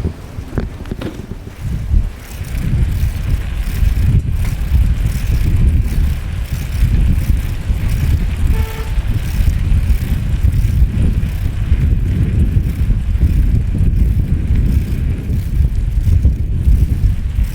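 Road traffic with a steady, gusty low rumble and wind buffeting the microphone. There is a brief higher-pitched tone about halfway through.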